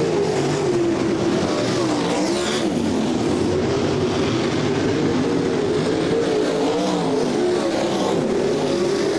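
A pack of winged sprint cars racing on a dirt oval, several engines at once, their pitch rising and falling as they lap the track.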